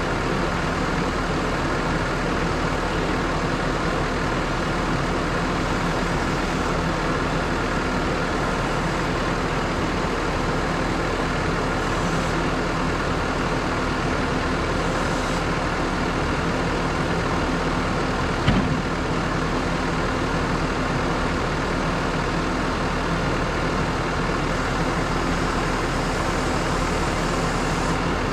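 Tractor engine running steadily with a constant drone, with a single sharp knock about eighteen seconds in.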